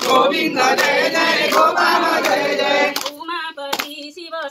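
A group of voices singing a devotional kirtan, kept in time by sharp regular beats. About three seconds in, the dense sound of many voices thins to a few voices carrying the tune, with a beat roughly every three-quarters of a second.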